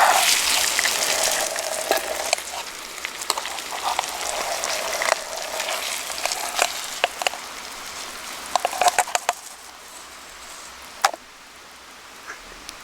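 Food sizzling in a pan over a campfire, a steady hiss with scattered sharp crackles and pops. It is loudest at the start and dies down toward the end.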